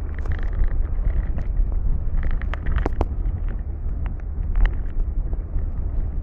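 Yacht's engine running with a steady low rumble while it manoeuvres to moor, with scattered knocks and clicks on top.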